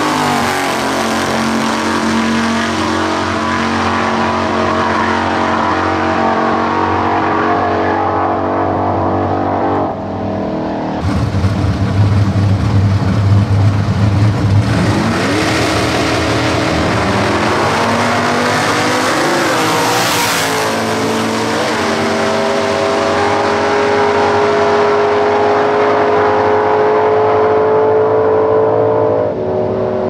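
V8 drag-car engines at full throttle on quarter-mile passes, including a V8-swapped Datsun Bluebird. About ten seconds in, the sound cuts to a loud low rumble at the start line, then revs rising and falling in pitch, then a long full-throttle run whose pitch climbs slowly until it drops away near the end.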